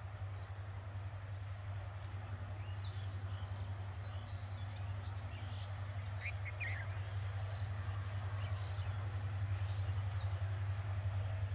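Low, steady drone of a diesel locomotive approaching from a distance, slowly growing louder as it nears. A few short bird chirps come through in the middle.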